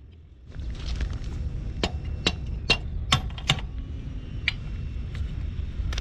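Sharp metallic clicks and clinks, about six in quick succession in the middle, from wrenches and rear-axle hardware being worked loose on a motorcycle rear wheel, over a low rumbling background.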